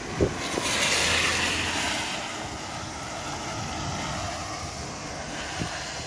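A vehicle passing on a wet road: tyre hiss over a low engine hum swells about a second in, then fades into a steady hiss. A short knock comes right at the start.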